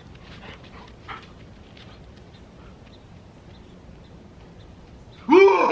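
Faint scattered rustles and light ticks of huskies moving about on grass and leaves. Near the end a sudden loud, wavering voice breaks in.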